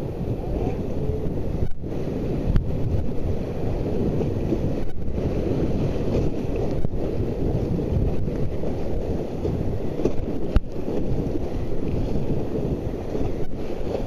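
Rushing whitewater of river rapids around an inflatable raft, mixed with wind buffeting the microphone. A few sharp knocks break through, the loudest about ten and a half seconds in.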